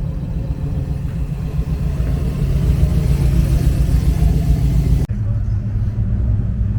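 Low, steady rumble of vehicle engines, which changes abruptly about five seconds in.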